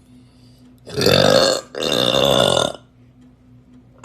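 A person burping: two long, loud burps back to back, each about a second, starting about a second in.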